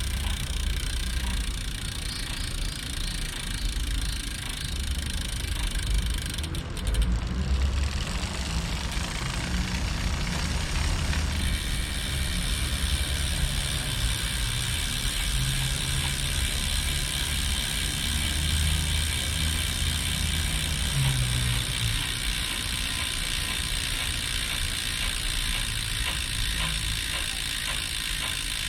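Bicycle running on a Campagnolo Shamal Mille wheelset, a steady rumble with mechanical noise from the rear hub. The owner traces the abnormal noise to play in the freehub bearing.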